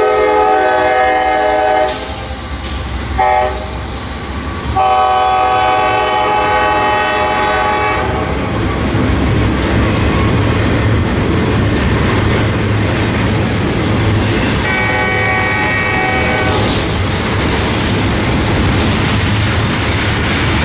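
Locomotive air horn sounding a long blast, a short one and another long one, with a fainter blast later, over the steady rumble and wheel clatter of a passing train.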